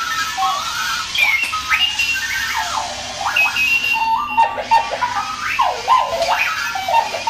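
Clocky runaway alarm clock sounding its alarm: a continuous string of electronic beeps and chirps that jump between pitches and swoop up and down.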